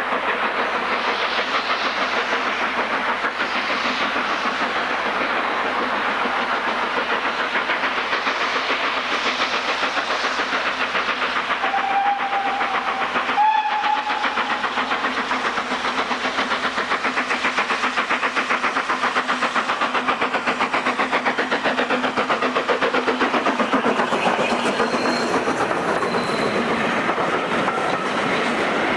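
BR Standard Class 4 4-6-0 steam locomotive 75078 working a passenger train, its exhaust beating steadily and rapidly as it approaches. A short whistle sounds about twelve seconds in. Near the end the coaches pass close by with their wheels clattering on the rails.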